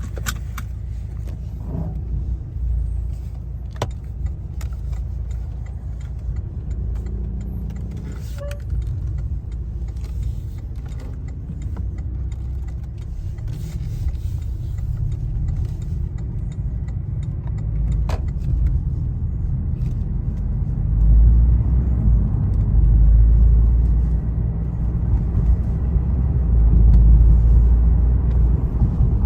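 Porsche Boxster with a PDK dual-clutch gearbox running after a transmission repair, a steady low engine and road rumble that swells louder about two-thirds of the way through and again near the end, with a few light clicks.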